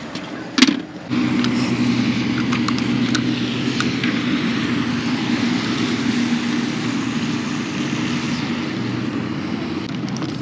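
A short click about half a second in, then a motorboat's engine running steadily, a low even hum that carries on without a break.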